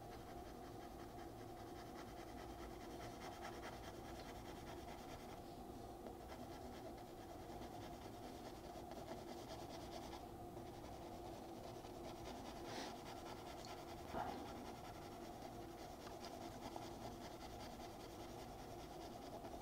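Faint scratching of a pencil shading on drawing paper, over a steady low hum, with one brief louder tick about two-thirds of the way through.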